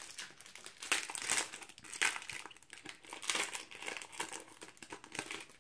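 Panini Euro 2016 foil card packet being torn open and crinkled by hand: irregular crackling foil rustles in several louder bursts.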